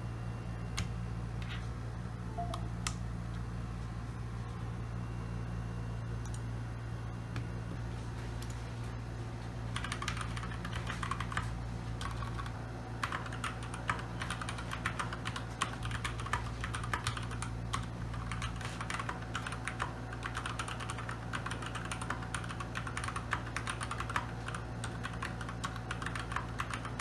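Typing on a Keychron K2 mechanical keyboard with tactile brown switches: a few scattered keystrokes at first, then fast continuous typing from about ten seconds in. A steady low hum runs underneath.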